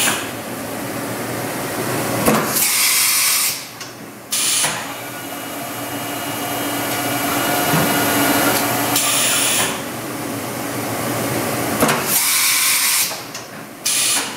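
Matsuura MC-760VX CNC vertical machining center running under power: a steady whir and hiss, with three louder rushes of hiss about a second long, about two and a half seconds in, around nine seconds and around twelve seconds.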